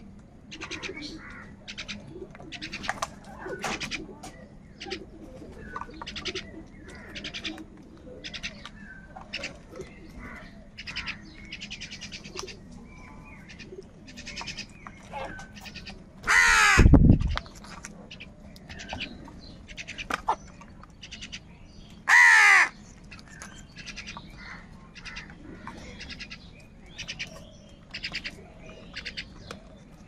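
A flock of house crows cawing as they feed, with many short calls throughout. Two much louder, harsh caws from a crow close by come about halfway through and again some five seconds later.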